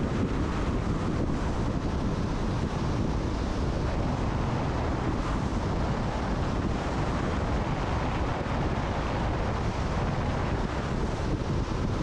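Steady wind rushing over the microphone of a camera on a car moving at road speed, with low road noise underneath.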